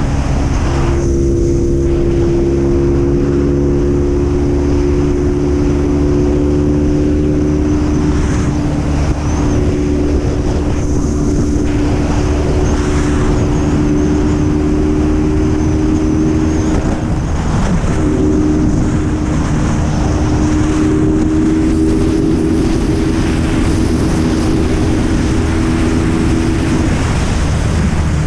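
BMW R nineT's air/oil-cooled boxer twin running through an Akrapovič full exhaust at a steady highway cruise. The engine note eases up and down slightly, with brief dips a few times, under a steady rush of wind.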